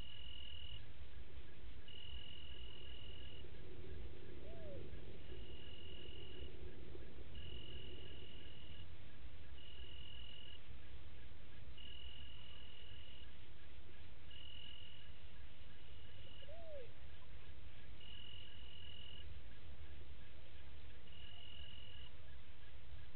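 Night insect chorus: a cricket-like insect trilling at one steady high pitch in bursts of about a second, repeating every two seconds or so, over a constant low background rumble. Twice a short faint call slides up and back down.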